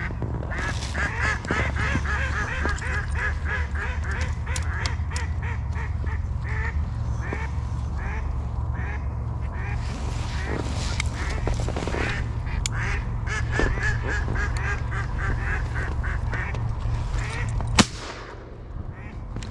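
Live decoy hen ducks quacking in long runs of rapid calls, calling to draw in drakes. Near the end comes a single loud shotgun shot.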